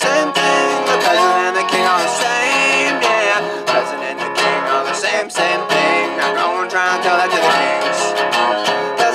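Resonator guitar strummed and picked steadily, with a man singing over it.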